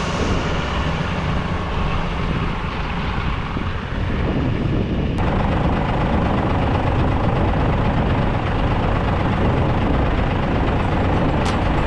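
Tractor engine running steadily, with a dense noisy rush over it; the sound changes abruptly about five seconds in.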